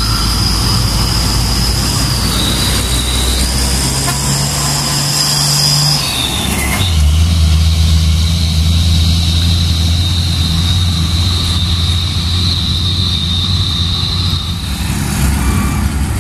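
Heavy diesel dump truck engines running as the trucks crawl past in slow traffic. After about seven seconds a loaded dump truck's diesel engine drones steadily close by as it pulls away. A steady high whine runs over the engine sound.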